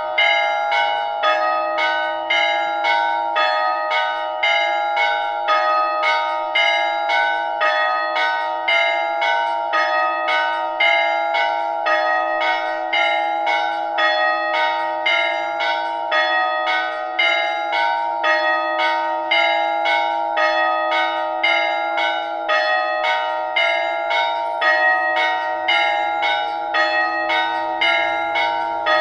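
Church bells ringing a peal, struck in rapid, even succession, with each bell's ring carrying over into the next strike.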